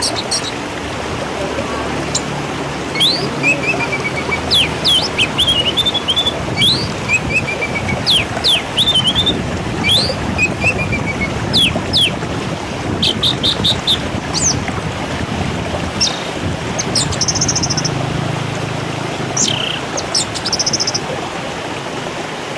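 Several birds chirping and trilling in short repeated calls over a steady rushing background noise.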